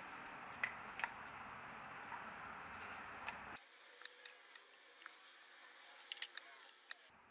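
Light clicks and rubbing as a compression tester's adapter and hose are handled and threaded into a spark plug hole, over a steady hiss whose character changes abruptly a few seconds in.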